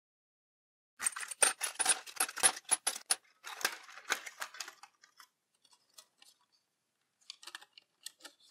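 Steel hex driver bits clattering and clinking against each other and the metal case as they are tipped out, in two quick runs of sharp clicks. Scattered light clicks and taps follow as the plastic insert tray is worked loose from the case.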